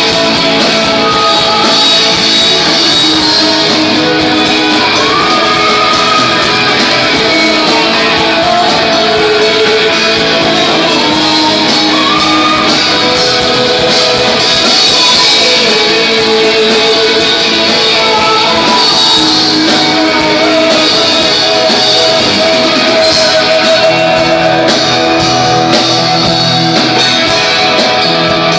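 Live band music: a rock band playing a song with electric guitars and singing.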